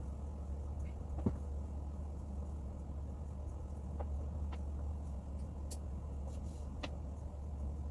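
Steady low hum with a few light clicks and taps of plastic toy ring parts being handled and fitted together; the sharpest click comes about a second in.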